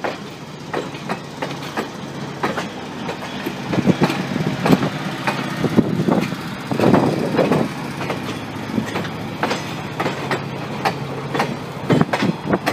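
Vintage passenger coaches rolling past close by, their steel wheels clacking over rail joints in irregular clusters over a steady low rumble.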